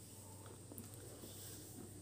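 Faint rustling and soft scrapes of a sheet of origami paper being pressed and slid on a tabletop, over a steady low hum.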